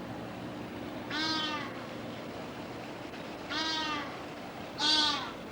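An animal giving three loud, drawn-out, meow-like calls, each about half a second long and arching in pitch, the last one the loudest.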